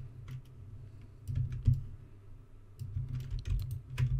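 Computer keyboard keys clacking in short bursts as shortcuts are pressed: a few keystrokes right at the start, a quick cluster about a second and a half in, and a longer run from about three to four seconds in.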